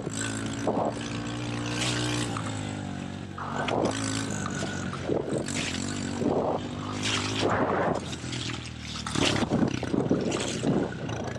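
Small four-stroke pit bike engine running at moderate revs while riding, its pitch rising and falling a little with the throttle. Irregular bursts of rushing noise sound over it.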